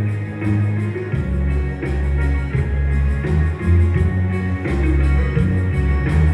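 Instrumental music with guitar, a deep bass line and a steady beat.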